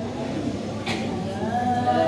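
A large group of girls chanting a Quran passage together in the nahawand maqam, voices held on long notes, growing louder about one and a half seconds in.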